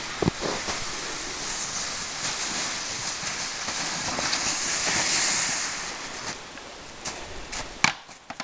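Plastic sled dragged over snow: a steady hissing scrape that grows louder as it passes close and then fades, with footsteps crunching in the snow. A single sharp snap near the end.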